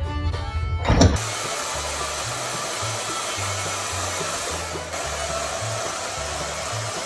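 A steady rushing hiss that cuts in suddenly about a second in, replacing fiddle music, with low bass notes of the music still running underneath.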